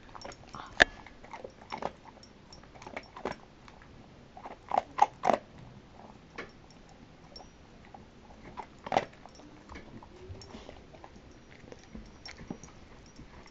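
Irregular small clicks and knocks, one sharp one about a second in, a quick group of three about five seconds in and another louder one about nine seconds in, with quiet between.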